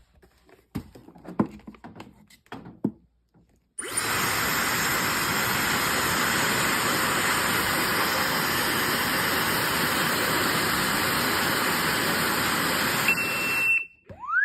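A few light clicks, then a Nohmi fire alarm sounding loudly and steadily for about ten seconds, starting and cutting off abruptly, with a short high steady tone just before it stops.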